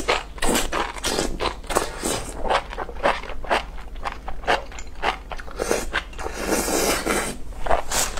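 Close-miked eating of enoki mushrooms in chili oil: slurping the strands and chewing them with many short, wet, crunchy smacks, several a second, and a longer slurp about six and a half seconds in.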